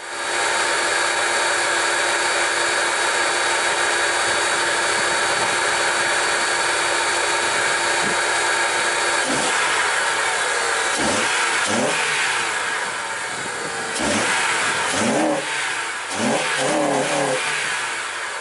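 2008 Acura TSX's K24 inline-four with a custom AEM intake, running at a steady speed and then revved in a series of blips from about halfway, the engine pitch rising and falling each time.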